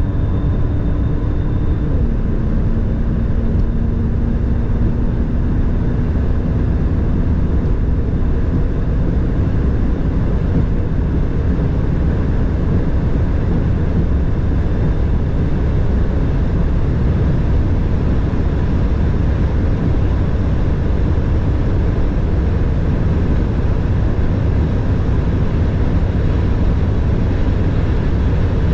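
Mercedes S65 AMG's twin-turbo V12 pulling at high speed under steady wind and road noise. Its engine note drops sharply about two seconds in, as at an upshift, then climbs slowly as the car keeps accelerating.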